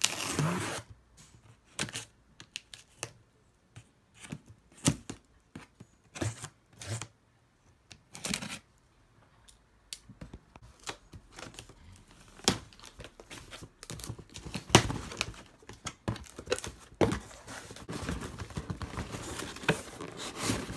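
Packing tape ripped off a cardboard shipping box in the first second, then scattered clicks, taps and rustles of cardboard being handled, busier in the second half as the box flaps are opened and a shoebox is pulled out.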